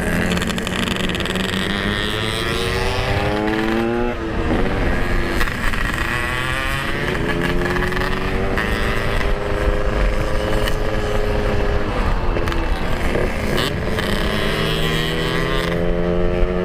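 Yamaha RX-King 135cc two-stroke single-cylinder engine running under way, its pitch climbing as it pulls through the gears and dropping at each shift, with a steady cruising stretch in the middle and wind rumble on the microphone.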